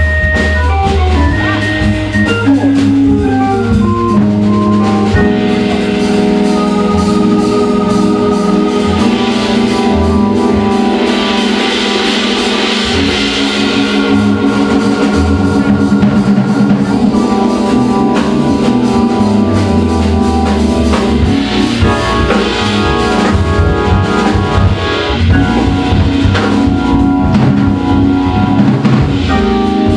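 Live jazz organ and drum kit playing a slow tune: the organ holds sustained chords over a low bass line while the drummer plays cymbals and drums, the cymbals swelling around the middle.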